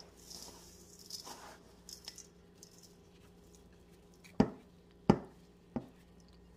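Soft rustling of dry breadcrumbs as cutlets are coated and pressed by hand, then, a little past halfway, three sharp knocks of kitchenware about two-thirds of a second apart, the loudest sounds.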